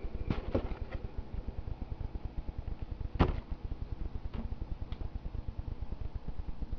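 Low, rapidly pulsing rumble with a few sharp clicks and knocks, the loudest about three seconds in.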